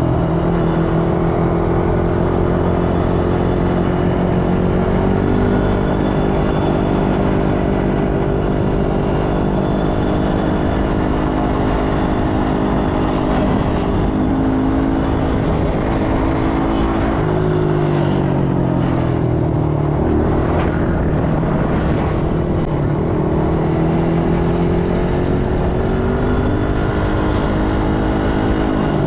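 ATV engine running while riding, its pitch mostly steady, dipping a little past halfway and climbing back up near the end as the throttle is eased off and opened again.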